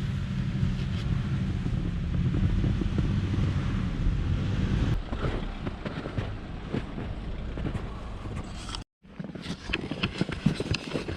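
Nissan NV350 Caravan van moving, a steady low rumble, for about the first five seconds. The rumble then drops away and irregular crunching follows, and after a brief cut near the end come sharp crunching steps in snow.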